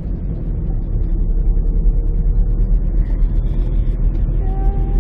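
Steady low rumble of a car in motion, heard from inside the cabin. A faint held tone comes in near the end.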